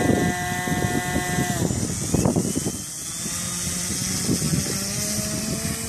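Radio-controlled model airplane motor running: a steady whine that drops in pitch and fades about a second and a half in, with a lower tone coming in near the end. Wind gusts on the microphone throughout.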